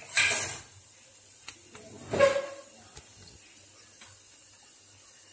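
Small pan of ghee heating on a gas stove with a faint steady hiss. Two short, louder noises come near the start and about two seconds in.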